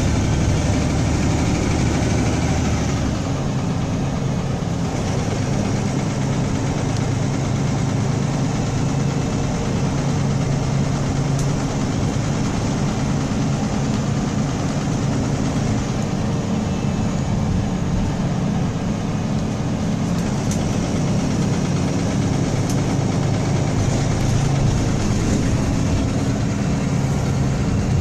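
Diesel engine of a MAN single-decker bus running steadily, heard from inside the passenger saloon: a constant low hum whose deepest rumble eases about three seconds in. The engine is one the owner calls rattly.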